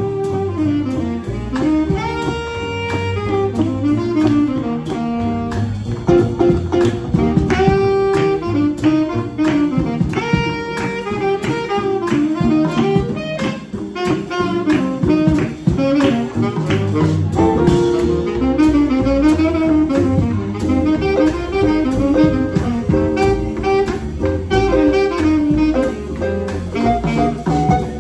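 Small jazz combo playing a swing tune, with a saxophone carrying the melody over acoustic guitar, upright bass and drum kit.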